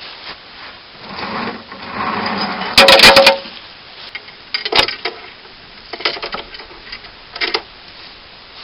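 Steel chain and metal parts clanking and rattling as they are handled: a loud cluster of rattling clanks with a brief metallic ring about three seconds in, a single clank near five seconds, then shorter rattles around six and seven and a half seconds.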